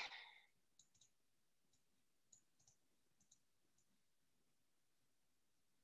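Near silence broken by a brief soft rush of noise at the start, then faint scattered clicks of a computer mouse.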